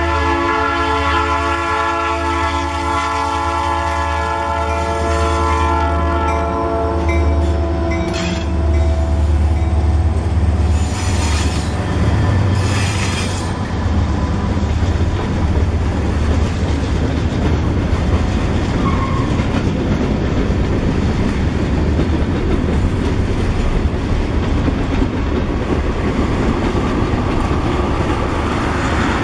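Norfolk Southern diesel freight locomotive blowing its horn as it approaches the grade crossing, the horn cutting off about seven seconds in, over the low rumble of the diesel engine. Then a long string of freight cars rolls past with steady wheels-on-rail clatter.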